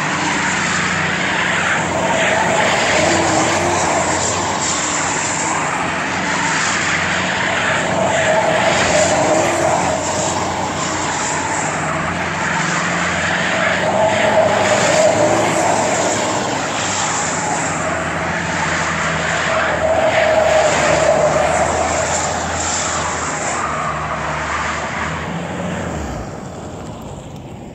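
Jeep Liberty 2.8 CRD four-cylinder turbo-diesel held at high revs while its tyres squeal and spin in repeated doughnuts. The sound swells about every six seconds as the Jeep circles past, then fades near the end.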